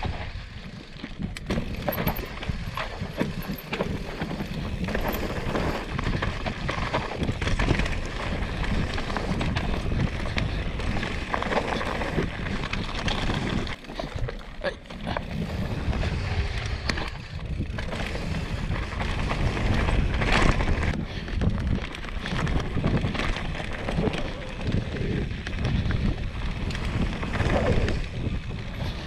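Mountain bike descending a dry, rocky dirt trail: tyres rolling and crunching over dirt and stones, with frequent knocks and rattles from bumps, and wind buffeting the microphone as a steady low rumble.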